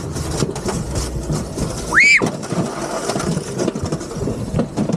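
A ride cart rolling fast down its track, a steady rumble of wheels on the track. About two seconds in comes one loud, short, high squeal that rises and then falls in pitch.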